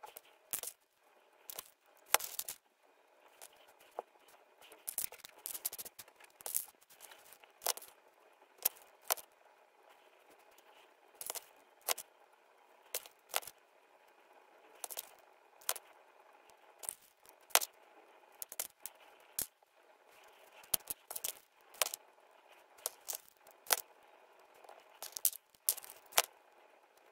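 Small coquina shells and a hot glue gun handled over cardboard: irregular sharp clicks and light taps, about one or two a second, as shells are picked up, set down and pressed into place, with faint scraping.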